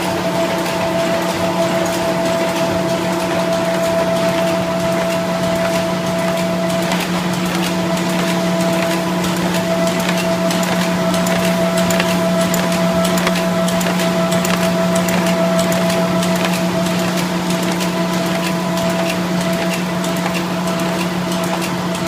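Carton folder-gluer machine running steadily: a constant drive hum and whine with a dense stream of fine rapid clicks.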